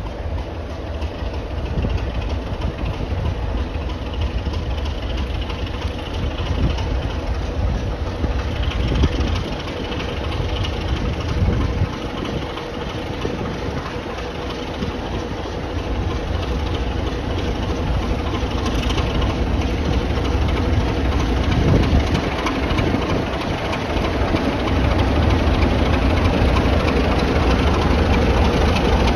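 Diesel engine of a Class 33 'Crompton' locomotive running as the train draws slowly past, a steady low rumble that grows louder toward the end.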